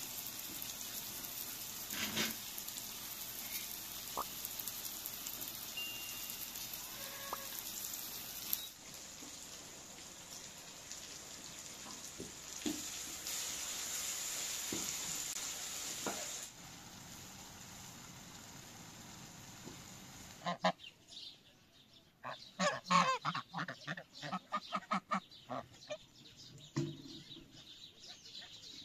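Greens and tomatoes sizzling in a wide frying pan, with a few spoon clicks against the pan. About twenty seconds in, domestic geese break into loud honking, a rapid run of calls that makes up the loudest part.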